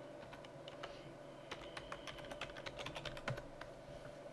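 Keys tapped on a computer keyboard as a password is typed, a quick uneven run of faint clicks, with one louder keystroke a little past three seconds in.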